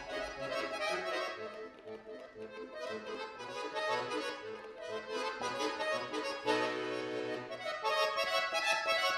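Bayan (Russian chromatic button accordion) played solo: quick runs of notes in the right hand over short bass notes. About six and a half seconds in, a full chord with a low bass note is held for about a second before the quick passage goes on.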